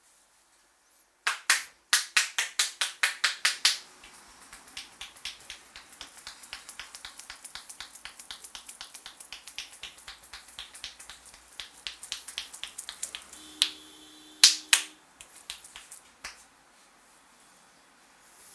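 Rapid rhythmic hand tapping of an Indian head massage: a fast, loud run of slaps and clacks on the head, about six a second, then a longer stretch of lighter, quicker taps, with a few sharp single strikes near the end.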